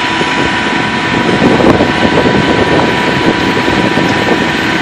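Utility line truck's engine running steadily, with a constant whine over it, while the truck's hydraulic boom hoists a pole-mount transformer.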